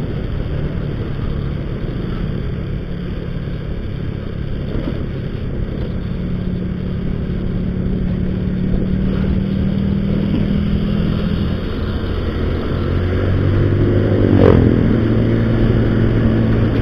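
Motor scooter's engine running while riding along a road, over a steady rush of wind noise. The engine note drops to a lower pitch about three-quarters through, with a short sharp sound soon after.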